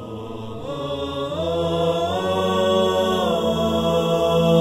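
Intro music of sustained, chant-like voices holding long notes. The pitch steps up about a second in and again near two seconds, then drops back later, while the music swells from a dip at the start.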